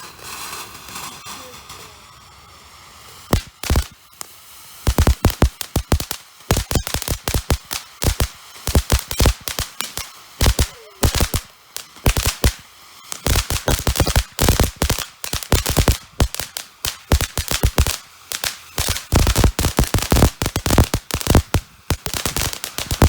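Fireworks going off: a soft crackling fizz, then from about three seconds in a rapid barrage of sharp bangs in dense volleys that keep going.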